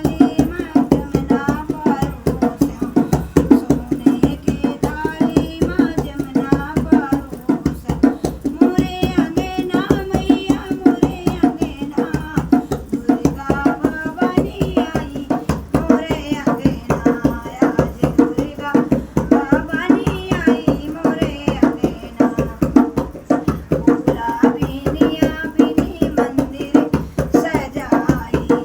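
A woman singing a devi geet, a Hindu devotional song to the goddess, over fast, steady hand-drum beats.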